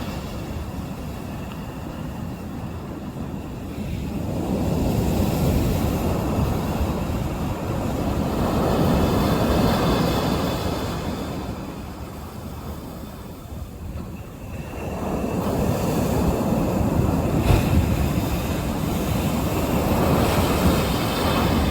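Sea waves breaking on the shore: a rushing surf that swells and ebbs in long washes, fading about halfway through before another surge builds and holds.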